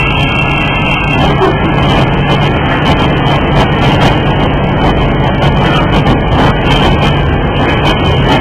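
Porcelain cup finishing machine running steadily: a loud, continuous mechanical noise with a constant low hum.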